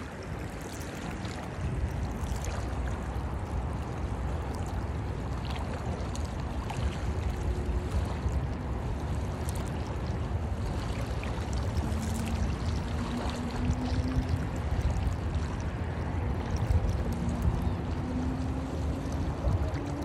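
Small waves lapping and splashing over a shoreline of matted plant stems, a steady wash of water with small ticks of splashing, under a heavy rumble of wind on the microphone.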